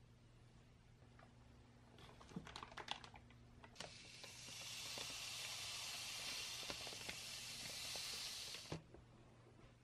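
Granulated sugar poured from a plastic bag into a wooden bowl: a steady hiss of about five seconds that stops abruptly near the end. It is preceded by a few light crinkles and taps.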